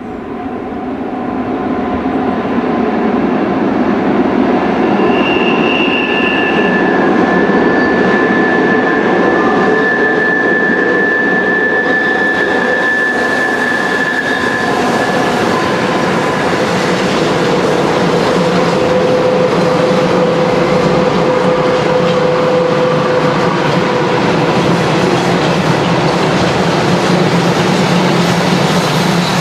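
Freight train hauled by two ÖBB 1144 electric locomotives passing through tight curves, growing louder over the first two seconds and then holding a steady heavy rumble of wheels on rail. Wheel flanges squeal against the curved rails in several held high tones that come and go, the sign of flanges climbing the rail on the tight curves.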